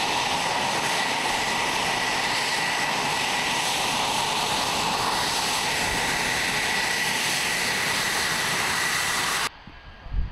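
F-22A Raptor's twin F119 turbofan jet engines running close by: a steady jet roar with a high whine. It cuts off suddenly near the end to a much quieter background, followed by a brief low thump.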